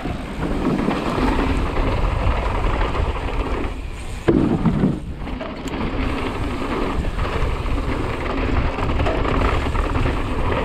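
Downhill mountain bike riding fast down a dirt trail: wind rushing over the action camera's microphone along with tyre and chassis rattle, and a sudden loud thump about four seconds in.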